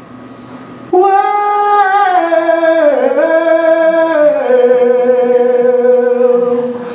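One singing voice, starting about a second in, holding a single long drawn-out note that slides down in pitch in a few steps before settling low and held: the opening of a rock-and-roll song.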